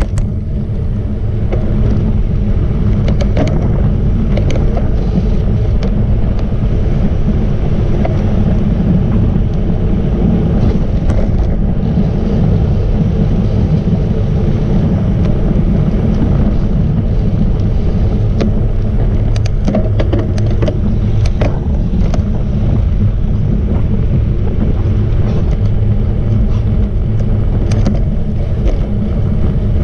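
Wind buffeting the microphone of a camera riding along on a road bike, a steady low rumble with a few faint clicks scattered through it.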